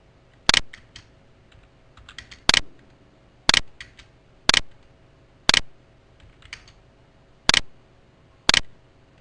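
Keys pressed one at a time on a computer keyboard: seven sharp, loud key clicks, most about a second apart, with a few lighter taps between them.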